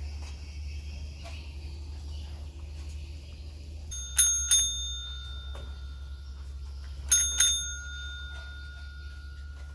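A small bell rung in two quick double dings about three seconds apart, each ring lingering after the strikes: a bell used to call rabbits.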